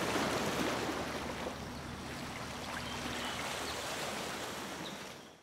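Water rushing and splashing along a moving boat's hull under a faint low hum, fading out near the end.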